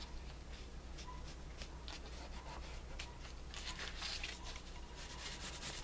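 Hands working black colour along the edges of a paper art page and shifting the sheet on the table: faint, scratchy rubbing made of many short strokes.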